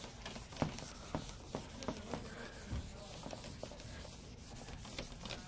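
Rubbing and scuffing with scattered light clicks and knocks, the handling noise of someone moving about at a whiteboard.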